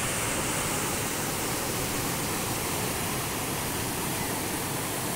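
Floodwater flowing fast over a breached embankment, a steady rushing noise.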